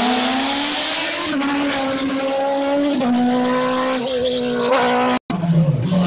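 Sports-prototype race car engine at full throttle on a hillclimb, held at high revs with brief dips in pitch at the gear changes. The sound cuts off abruptly about five seconds in, then a lower engine note takes over.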